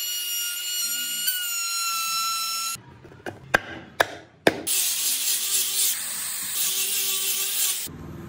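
Handheld trim router running with a steady high whine while cutting a wooden recess. It stops, and four sharp knocks follow as a wooden panel is tapped into place. About four and a half seconds in, a power tool starts up with a loud hiss and runs until just before the end.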